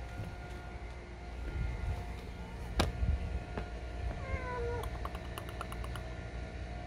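A cat under a parked car gives a single meow, falling in pitch, about four seconds in. A sharp click, the loudest sound, comes a little before it, and a quick run of faint ticks follows. A low outdoor rumble runs underneath.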